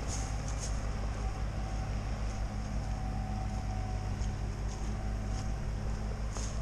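Belarus tractor's diesel engine running under load as it tows a UAZ Patriot through deep mud ruts: a low, even drone.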